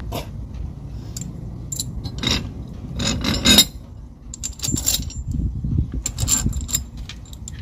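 Metal parts of a cutless-bearing puller being fitted onto its threaded rod by hand: irregular clinks and scrapes of nuts and plates, loudest about three and a half seconds in.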